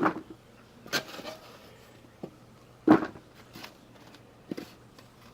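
Handling noise from working with the potatoes and pots: a few sharp knocks and thuds, the loudest about three seconds in, with fainter taps and rustles between.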